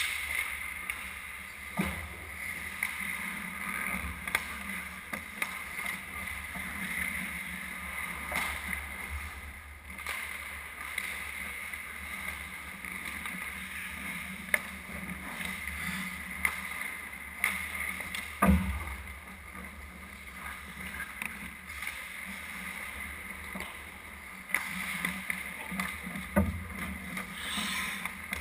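Ice hockey play in an arena: a steady scrape and hiss of skates on the ice, broken by occasional sharp knocks of sticks and puck, the loudest about eighteen seconds in.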